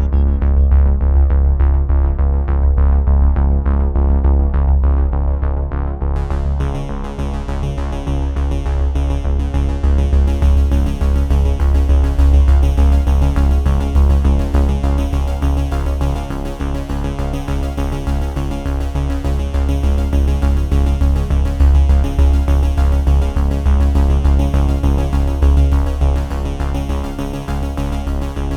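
Instrumental background music with a steady heavy bass and sustained keyboard-like tones; a brighter high end comes in about six seconds in.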